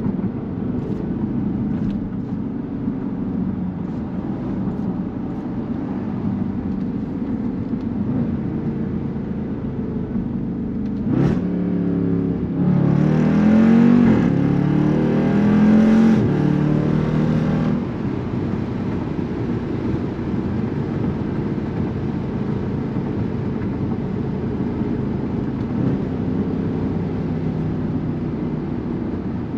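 2019 Jeep Grand Cherokee SRT's 6.4-litre HEMI V8 heard from inside the cabin, cruising with a steady low exhaust drone through valved mufflers. About eleven seconds in it accelerates hard for some six seconds, the pitch rising, dipping once at a gear change and rising again, then drops back to cruise.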